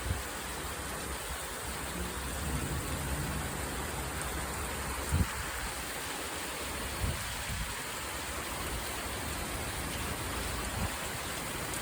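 Steady heavy rain falling, with a few brief low thumps, the loudest about five seconds in.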